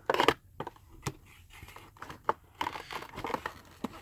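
Hands handling a Funko Pop's cardboard box and plastic packaging: scattered clicks, taps and light rustling, with a sharper rustle right at the start.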